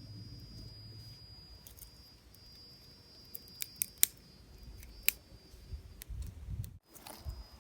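Small campfire of dry grass and twigs burning, with a few sharp isolated crackles and pops in the middle.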